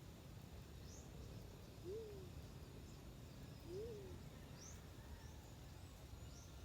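Two faint, low coos of a black-chinned fruit dove, each rising and then falling, about two seconds apart. Faint high chirps of small birds sound in the background.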